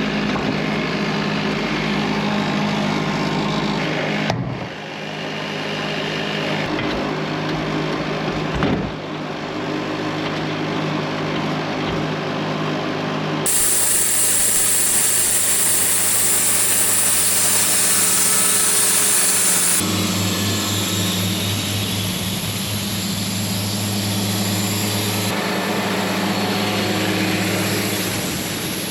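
Portable band sawmill running, its engine steady while the blade cuts through a log. The sound changes abruptly a few times, with a bright high hiss of cutting from about halfway through.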